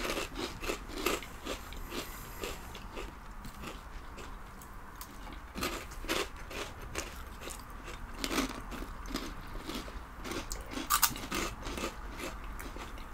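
Two people biting and chewing crunchy zesty ranch veggie straws: a run of irregular, crisp crunches coming in clusters, with a sharper one near the end.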